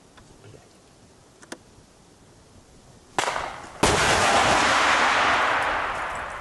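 Launch of a Stugna-P anti-tank guided missile. A sharp bang about three seconds in is followed half a second later by a second, louder bang, then the rushing noise of the rocket motor, slowly fading as the missile flies off.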